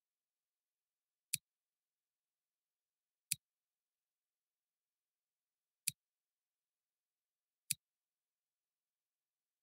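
Four sharp single computer mouse clicks, spaced about two seconds apart, with dead silence between them.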